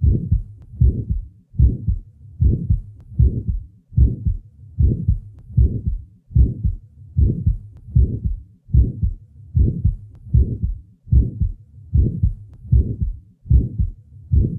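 Stethoscope recording of heart sounds with an early systolic murmur that begins with the first heart sound and stops in mid-systole, the murmur of a small muscular ventricular septal defect. The beats come evenly, about one every 0.8 seconds.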